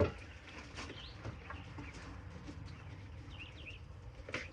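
Faint bird chirps over a quiet background, a few short calls about a second in and a cluster past three seconds. A sharp knock at the start and a smaller one near the end.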